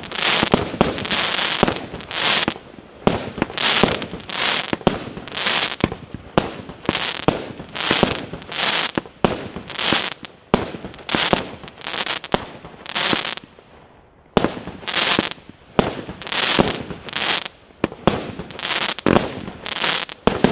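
A 25-shot 20 mm (0.8-inch) consumer fireworks cake firing, about one shot a second. Each shot is a sharp crack followed by a second or so of hiss from the bursting peony and glitter effects.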